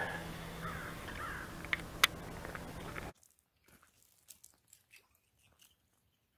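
Faint steady outdoor background noise with two short sharp clicks about two seconds in, then near silence from about three seconds on.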